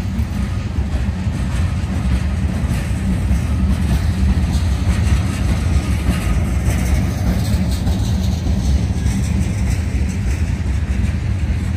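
Freight train cars, covered hoppers then tank cars, rolling past close by: a steady low rumble of steel wheels on rail with faint clicking.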